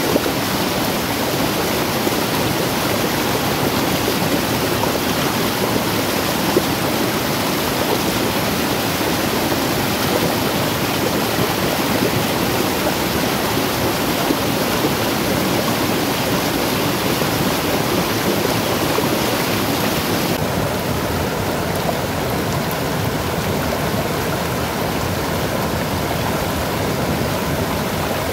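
Muddy floodwater rushing steadily over a small waterfall and down an eroded gully. About twenty seconds in, the higher hiss of the water drops a little.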